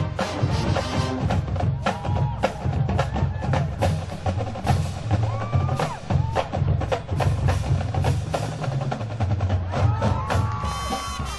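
Marching band percussion section playing a fast rhythmic passage: rapid sharp drum and wood-block-like strokes over bass drums, with a few pitched notes near the end.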